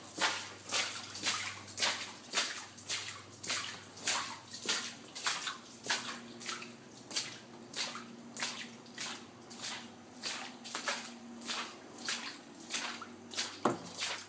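Water splashing in a steady rhythm, a little under two splashes a second.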